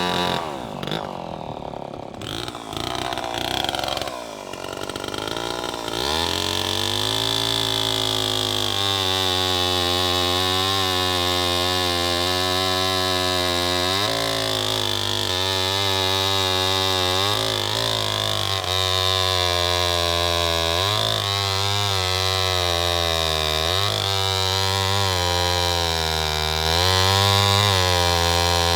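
Homelite C-91 chainsaw's 5.2-cubic-inch two-stroke engine running. For the first few seconds its speed sweeps down and wavers, then it settles into a steady run with brief dips and recoveries in engine speed every few seconds.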